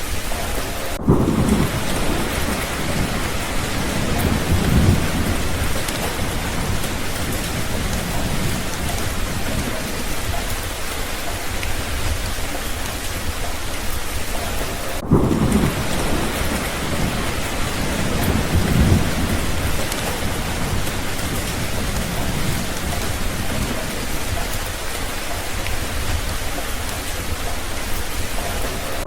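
Steady rain with low rolls of thunder. The rumbles come about a second in and again about halfway through, each followed by a second swell a few seconds later.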